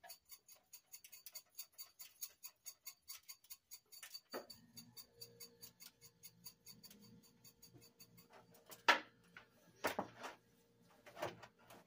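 Pepper shaker shaken over a raw duck, rattling in quick regular strokes about four a second, then a few louder knocks near the end. A faint steady low hum comes in about four seconds in.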